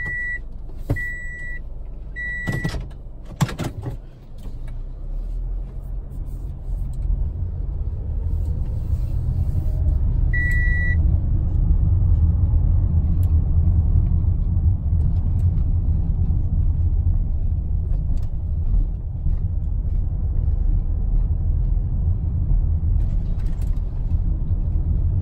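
Car driving, heard from inside the cabin: a low engine and road rumble that grows louder after the first several seconds. Short high electronic beeps sound three times in the first three seconds and once more about ten seconds in, the seatbelt reminder chime for occupants who are not buckled up, with a few knocks around three seconds in.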